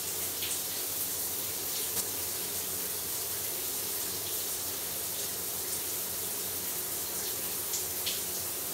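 Shower running: a steady, even rush of water spray.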